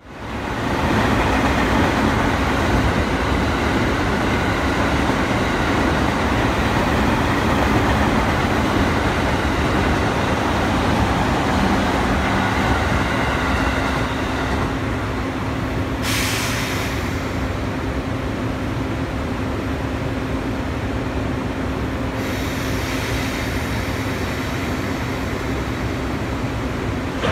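EF65 electric locomotive and its container freight train: a loud steady rumble for the first half, easing into a steady low hum as the locomotive stands. A short sharp hiss of air comes about 16 seconds in, and a softer hiss runs from about 22 seconds.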